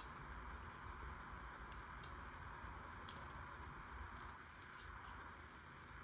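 Faint, scattered clicks of plastic LEGO Technic pieces being handled and fitted together, a few irregular ticks over a steady background hiss.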